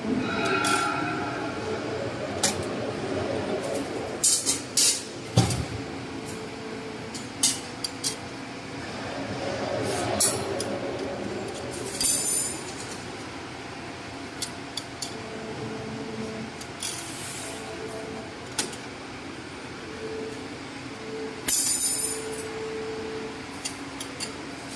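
CNC 3D wire bending machine running through its cycle: a motor whine that starts and stops repeatedly, with sharp clicks and several short bursts of hiss.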